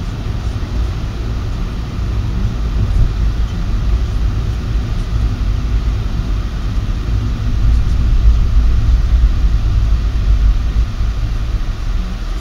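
Car cabin road and engine noise picked up by a dash cam while driving: a steady low rumble that grows a little louder around the middle and eases off near the end as the car slows.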